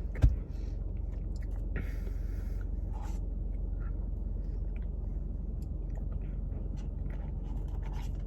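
A person chewing a mouthful of ice cream with dense cake pieces, with scattered small clicks. There is one sharp knock just after the start, and a steady low hum underneath.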